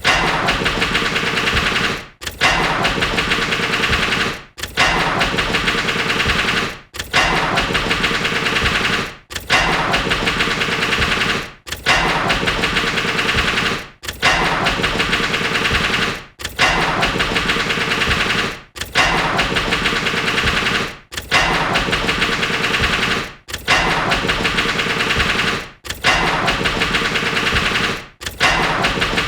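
Car engine started and stalling over and over: each time a sudden burst of fast ticking as it cranks and fires, fading out after about two seconds, repeated about every two and a half seconds.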